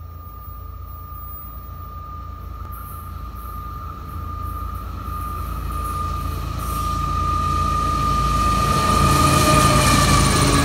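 Florida East Coast GE ES44C4 diesel locomotives approaching and passing close by, their rumble building steadily louder. A single steady high tone grows with the rumble and drops slightly in pitch as the lead locomotive goes by near the end.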